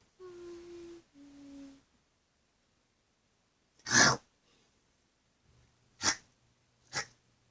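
A short two-note whine or hum near the start, then one loud sneeze about four seconds in, followed by two smaller sneezes or snorts.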